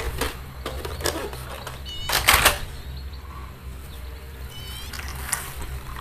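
Plastic toy vehicles being handled and knocked together: a series of short knocks and clatters, the loudest a little over two seconds in, over a steady low hum.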